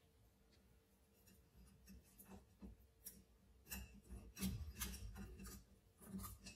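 Faint handling noise: scattered small clicks and rubbing of plastic and rubber parts as a rubber sleeve is worked onto a steering wheel boss kit, busiest a little past the middle.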